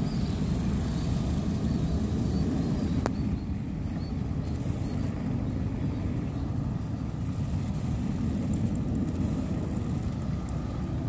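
Steady low rumble of a twin-engine jet airliner's engines at full climb power as it climbs away after take-off. A single faint click about three seconds in.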